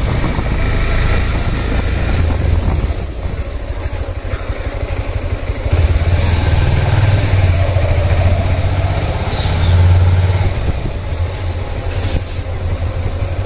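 Small motorbike engine running while riding, with the engine note louder and stronger from about six to ten seconds in.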